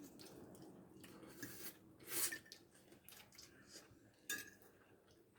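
Faint clinks and scrapes of a spoon against a dish, with a few short louder sounds about two and about four seconds in.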